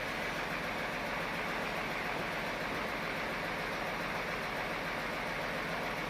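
Sawmill machinery running steadily: a continuous mechanical hum with a steady low drone, no distinct cuts or impacts.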